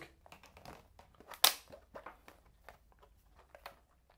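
PETG print crackling and clicking on a flexed spring-steel PEX build sheet as it starts to release from the glue-stick layer, with one sharp crack about a second and a half in.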